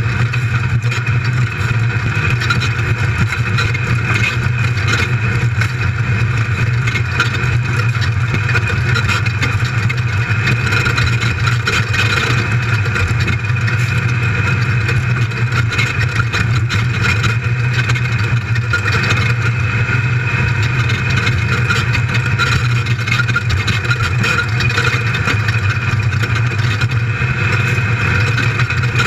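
The race buggy's built LS1 V8 runs hard and steady at racing speed, heard from inside the cabin. A constant clatter of the car over rough dirt road mixes with the drone.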